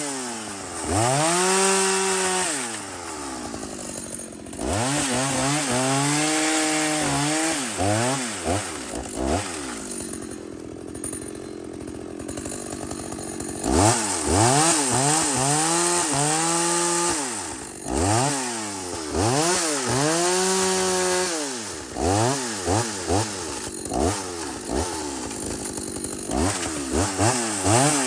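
Two-stroke chainsaw being revved again and again, its pitch climbing and dropping with each throttle pull, with a steadier, lower-pitched stretch in the middle.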